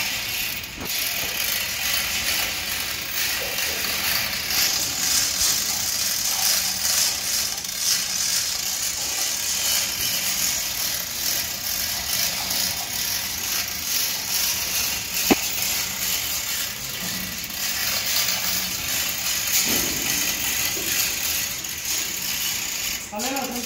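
Manual chain hoists being worked to lower a suspended steel hopper cone: continuous rattling of chain running through the blocks with ratchet-pawl clicking, and one sharp metallic knock about fifteen seconds in.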